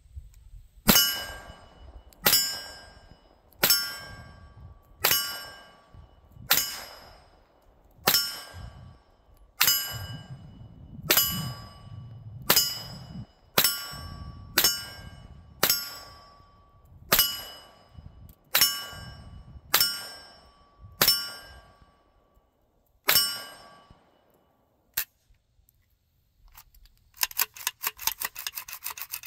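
Century Arms AK 9mm carbine firing about seventeen single shots, roughly one every second and a half, each followed by the ringing ping of a steel spinning target being hit. A short metallic rattle near the end as the rifle is handled.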